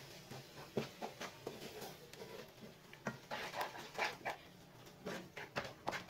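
Wooden spatula stirring and scraping a wet mix of grated coconut, milk and roasted wheat flour in a non-stick frying pan: faint, irregular soft scrapes and knocks against the pan.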